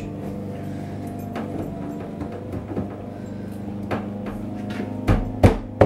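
Metal paint can lid being pried at with a screwdriver, giving scattered clicks and two sharp knocks near the end, over a steady low hum.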